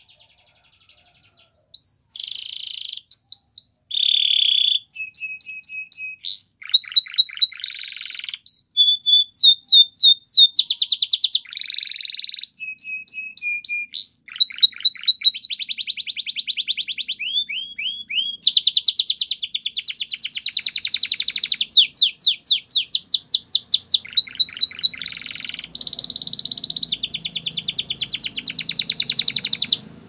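Canary singing a long, continuous song of fast trills and rolls, rapid runs of repeated notes and whistled glides, with only short pauses between phrases.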